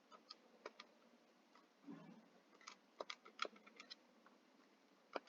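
Faint, irregular clicks of calculator buttons being pressed as a sum is keyed in, several in quick succession about three seconds in.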